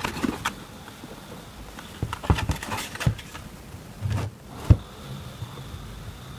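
Loose jog wheel of a Blackmagic DaVinci Resolve Speed Editor rocked sideways by hand, giving scattered knocks and clicks, the sharpest about three quarters through. The shaft of its magnetic encoder has play, which the owner puts down to worn bearings.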